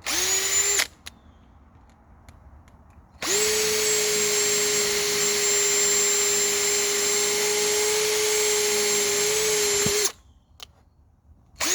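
Bauer cordless drill drilling with a small bit: a short burst, then a steady whine of about seven seconds after a brief spin-up, then another short burst near the end.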